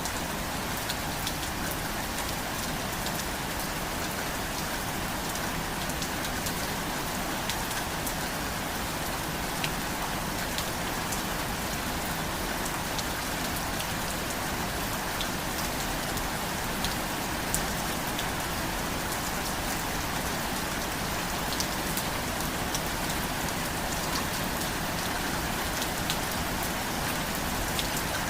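Steady rain falling on a surface, an even hiss with individual drops ticking sharply here and there.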